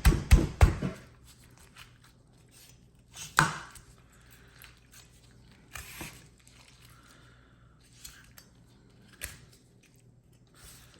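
Cutting along a Cornish game hen's backbone to spatchcock it: a quick run of sharp cuts through bone in the first second, then a few single cuts spaced a few seconds apart.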